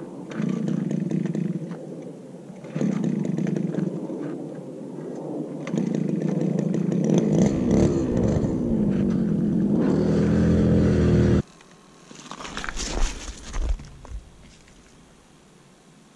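Gas-powered ice auger engine running, its pitch and level rising and falling as it revs, then cutting off suddenly about eleven seconds in. A few short scraping noises follow.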